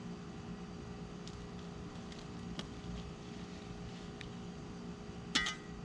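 Steady low drone of an engine running, with a few faint ticks and one sharp metallic clink near the end.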